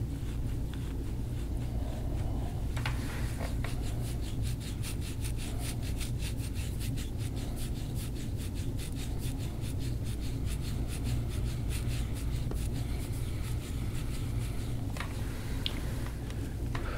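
Fingers rubbing quickly and rhythmically over skin and short hair at the base of the skull during deep-tissue massage, making a scratchy friction sound several strokes a second. A steady low hum runs underneath.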